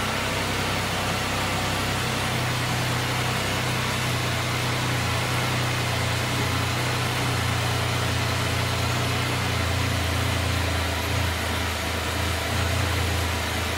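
2018 Can-Am Spyder RT's Rotax 1330 three-cylinder engine idling steadily.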